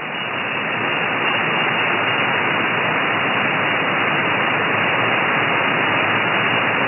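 Hiss of band noise from a shortwave SDR receiver (SDRplay RSPduo with a Mini Whip active antenna) tuned to the 17 m band in upper sideband, with no station on the frequency. The hiss swells over the first second or so, then holds steady.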